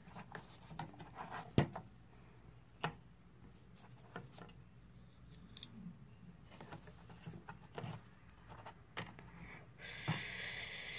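Small plastic toy figures and salon furniture being handled and set down: scattered light clicks and taps, with a steady hiss starting near the end.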